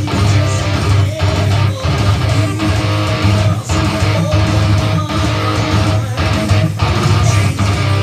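Electric guitar played live through a Kemper Profiler amp modeler.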